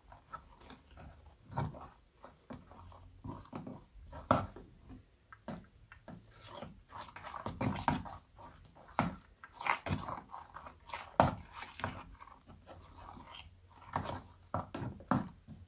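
A silicone spatula pressing and spreading clear slime in a plastic tub, making irregular wet squelches and sticky clicking pops.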